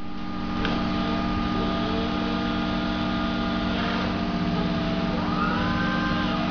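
Cat electric forklift's motors running with a steady electric hum. From about five seconds in, a whine rises and falls in pitch as the mast hydraulics are worked. There is a single click shortly after the start.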